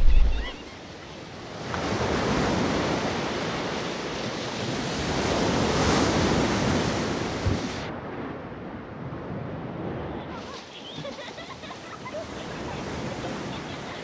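Ocean surf: waves washing in, swelling and fading. The upper hiss cuts off suddenly about eight seconds in and comes back a couple of seconds later.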